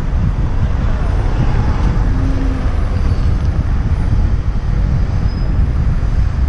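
Wind rumbling steadily on a moving action camera's microphone, with road traffic noise mixed in.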